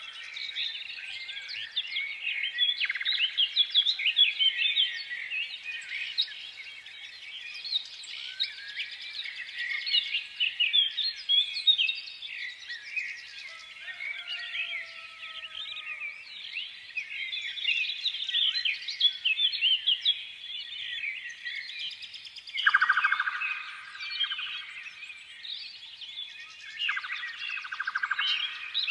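Many small birds chirping together in a dense, continuous chorus of short, high chirps. A rapid buzzy trill comes in about two-thirds of the way through and again near the end.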